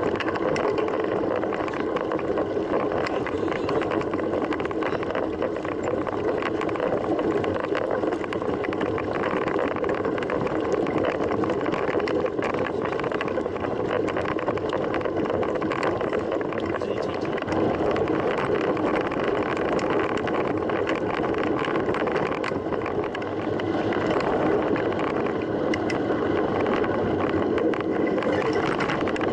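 Steady rolling noise of a mountain bike under way, with tyre hum and wind rushing over the microphone.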